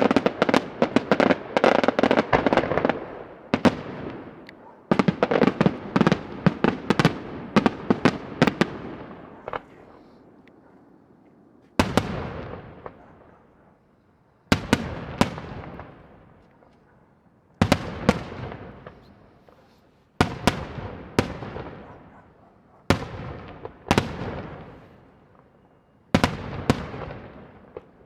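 Daytime fireworks display: dense volleys of rapid, loud reports in the first several seconds, then separate clusters of a few sharp bangs every two to three seconds, each echoing away.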